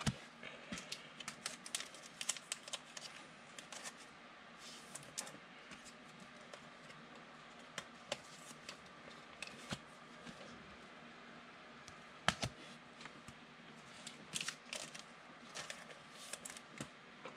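Faint, irregular clicks and brief scrapes of trading cards being handled and slid against each other, with a louder click about twelve seconds in.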